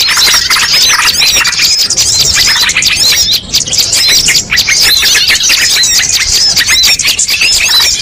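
A dense chorus of many small songbirds calling at once: rapid overlapping chirps, squeaks and short whistled sweeps, loud and continuous. It is a bird-lure recording that mixes the calls of many species.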